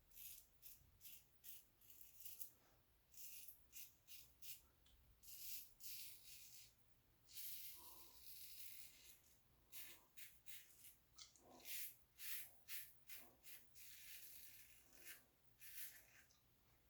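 Carbon safety razor with a Personna Med Prep blade scraping through lathered stubble: a run of short, faint strokes at an uneven pace, a few of them longer and drawn out, with brief pauses between.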